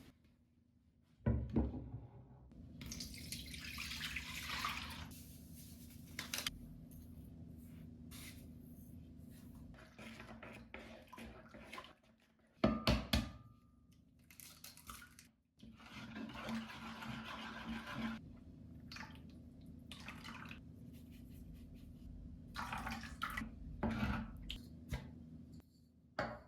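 Household kitchen sounds: water running in short spells, probably at a sink, with sharp knocks and clatters of things being handled, over a steady low hum.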